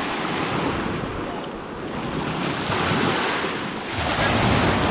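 Small sea waves breaking and washing up a pebble shore, the surf swelling and falling back, with wind buffeting the microphone.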